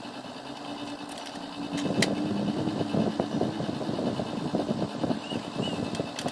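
Xbox 360 Slim running with its newly replaced disc drive: a steady hum, then from about two seconds in a dense, irregular whirring rattle as the drive spins.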